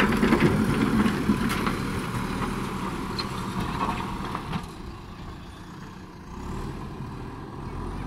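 JCB backhoe loader's diesel engine running under load as its front bucket pushes dirt and stones over concrete, with scraping and clattering, loudest in the first couple of seconds. After about four and a half seconds the sound drops to a quieter, steady engine as the machine drives along a dirt track.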